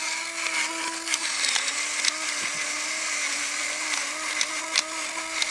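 Electric pepper grinder running steadily, its small motor whining at one fixed pitch as it grinds peppercorns, with a few faint clicks.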